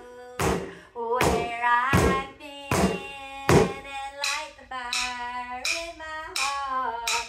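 Drumsticks beating on exercise balls set in buckets, a steady beat of about one hit every three-quarters of a second that quickens in the second half. A woman sings long held notes over the beat.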